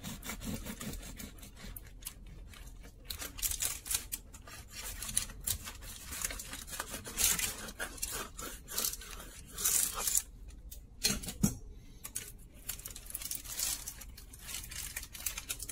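Kitchen knife sawing back and forth through the crisp, freshly baked crust of a loaf, a series of rasping scrapes with short pauses between strokes.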